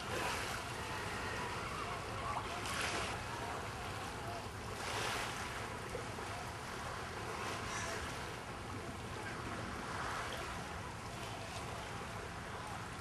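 Sea waves washing against rocks: a steady wash of water that swells every two to three seconds.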